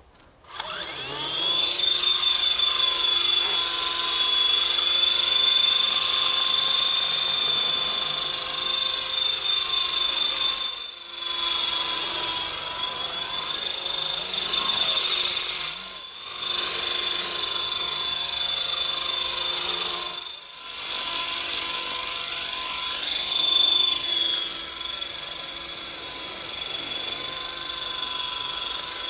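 WLToys V913 RC helicopter's electric motor and rotor spinning up with a rising whine, then holding a steady high whine. The whine dips briefly three times, about 11, 16 and 20 seconds in, and runs a little quieter near the end.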